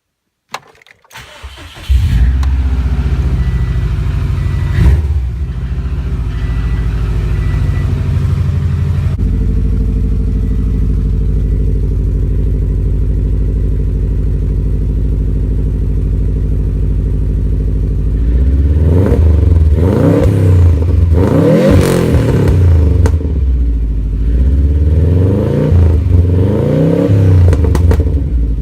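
2006 Subaru WRX's turbocharged flat-four engine cranking briefly and starting about two seconds in, then idling steadily through its exhaust. In the last ten seconds it is revved several times, each rev rising and falling, with crackles from the exhaust as the revs drop.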